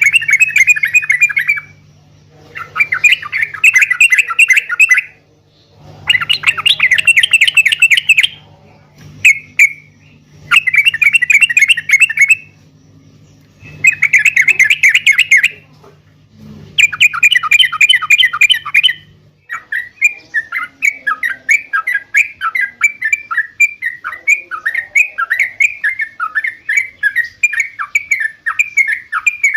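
Yellow-vented bulbul (trucuk) song: repeated bursts of fast, bubbling chatter, each about two seconds long, over a low steady hum. From about two-thirds of the way in, the hum drops out and the song becomes an unbroken run of quick falling notes.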